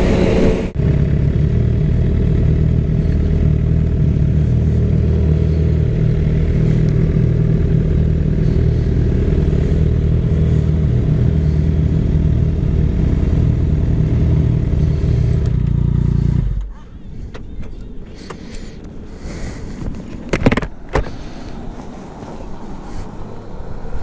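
Brief wind rush while riding, then a Suzuki GSX-R sportbike's inline-four engine idling steadily while stopped. About 16 seconds in it is switched off and cuts out suddenly, followed by a couple of knocks.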